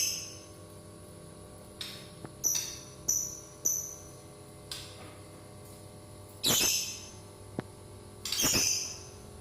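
Caged birds giving short, shrill calls about every second, with two longer, louder calls near the end.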